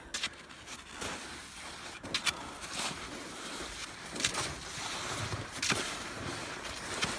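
Slow, uneven footsteps crunching in snow, a handful of them over a steady rushing noise.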